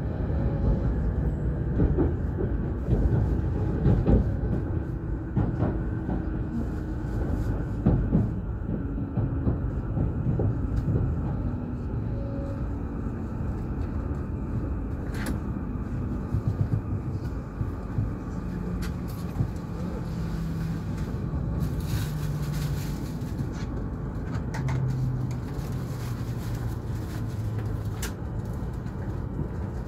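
E5 series Shinkansen running noise heard from inside the cabin: a steady rumble of wheels on rail. In the second half a low hum falls step by step in pitch as the train slows into the station, with a few short clicks.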